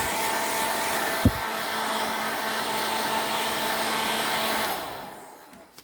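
Hair dryer blowing steadily, then switched off and winding down near the end, with a single knock about a second in.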